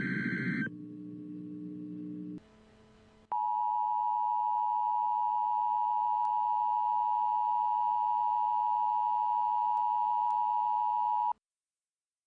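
Emergency Alert System audio: the tail of a screeching digital header data burst, a brief silence, then the EAS two-tone attention signal held steady for about eight seconds before cutting off abruptly, signalling that a warning message follows.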